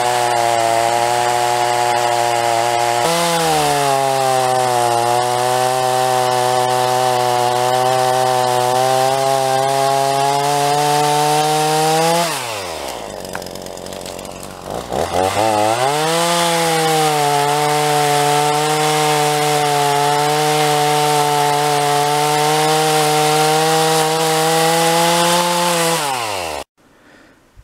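Gasoline two-stroke chainsaw running at high revs while cutting branches off a felled tree. About halfway through it drops to idle for a few seconds, revs back up to cut again, and stops abruptly near the end.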